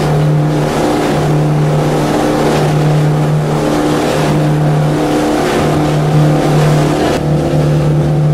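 Motorboat engine running steadily under way, a constant low drone over a hiss of water and wind that thins out about seven seconds in.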